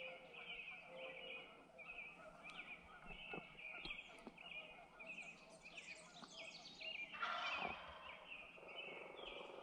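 Wild turkey gobbler gobbling once, faint and rattling, about seven seconds in, over a steady string of short high songbird chirps.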